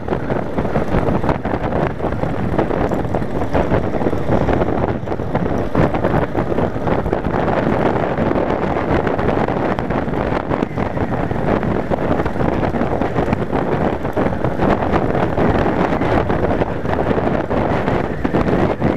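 Steady wind rushing over the microphone at road speed, with a Yamaha Wildstar cruiser's V-twin engine running underneath.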